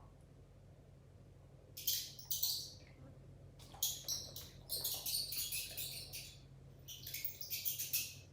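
Mouse squeaking sound effect played back: clusters of rapid, high-pitched squeaks, starting about two seconds in and coming in four bursts.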